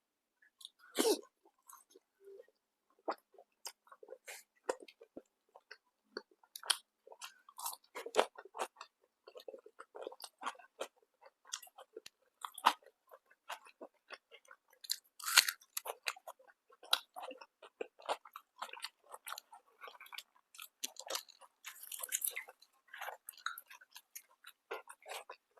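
A person chewing and biting food close to the microphone, with irregular crisp crunches throughout. The sharpest crunches come about a second in and near the middle.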